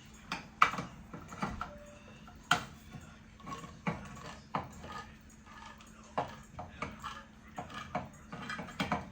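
Kitchen handling noise: metal cans and kitchenware clinked, knocked and set down in an irregular series of sharp clinks, over a faint steady low hum.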